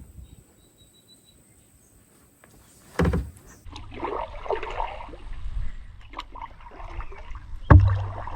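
Quiet at first, then a sharp thump about three seconds in, followed by kayak paddle strokes swishing through the water over a low rumble. A second, louder thump comes near the end.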